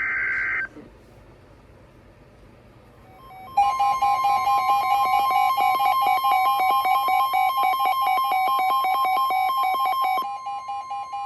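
Emergency Alert System broadcast tones. A short digital data burst ends in the first second. After a lull of about three seconds, the two-tone attention signal sounds steadily for about six and a half seconds, and one tone lingers briefly, wavering, near the end.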